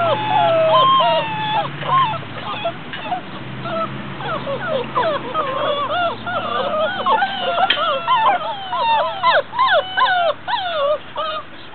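A litter of mastiff puppies whining and yelping together, many short high cries overlapping and sliding up and down in pitch, growing busier in the second half.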